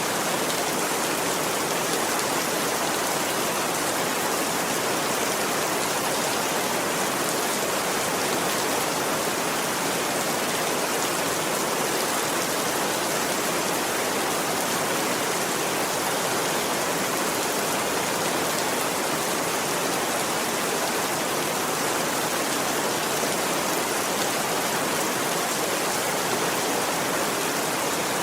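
Steady rain falling, a constant even hiss without thunder.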